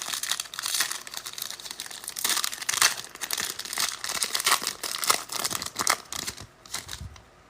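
Foil wrapper of a pack of football trading cards crinkling and tearing as it is opened, with irregular crackling that dies away near the end.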